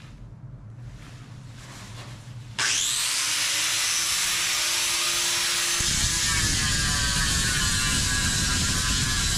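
Corded angle grinder switched on about two and a half seconds in, its motor spinning up to a steady high whine; about three seconds later the disc bites into the fiberglass overhead and a rough grinding noise joins the whine.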